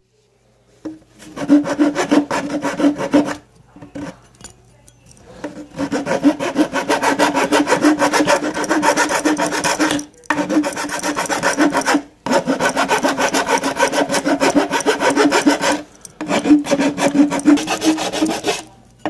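Rapid back-and-forth abrading strokes on the broken plastic pipe of a Dyson DC25 vacuum, roughening and cleaning the surface to prepare it for epoxy. The strokes come in several long bouts, separated by brief pauses.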